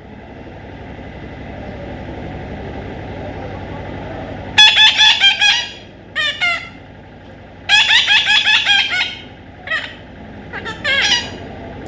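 Parrot calling in loud bursts of rapid, harsh repeated notes, two longer runs of about a second each and several shorter ones, over a steady background hiss.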